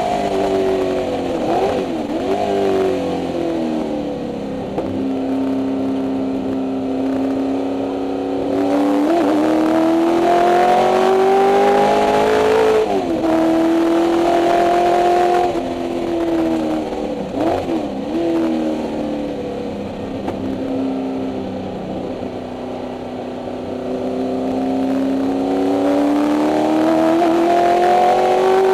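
Ford 289 Windsor V8 race engine heard from inside the Mustang's cabin, revving up hard through the gears on the straights and dropping to a low, steady drone through corners. It gives quick throttle blips on downshifts a few times.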